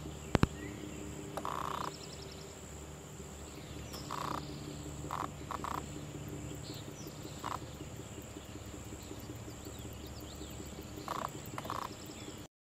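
Outdoor nature ambience: frogs croaking in short separate bursts over a steady high insect whine and a low, fast-pulsing chorus. Two sharp clicks just after the start are the loudest sound.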